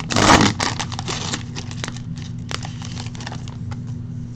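A short rustle, then scattered small clicks and crinkles as trading card packs and wrappers are handled; these thin out over a steady low hum.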